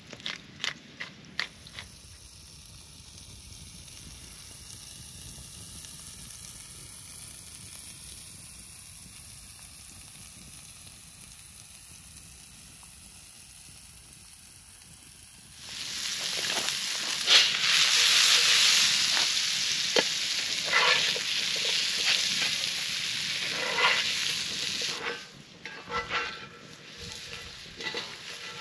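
A few quick rattles of a seasoning shaker, then a quiet stretch, then diced potatoes frying in a cast iron skillet over a campfire: a loud sizzle with a spatula scraping and tapping the pan. The sizzle drops away near the end, leaving a few scrapes and taps.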